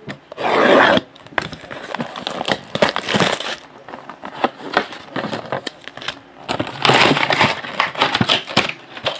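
Plastic shrink wrap on a cardboard trading-card box being slit with a utility knife and pulled off, crinkling, while the box is handled and opened, with small clicks and scrapes. The loudest crinkling comes about half a second in and again around seven seconds.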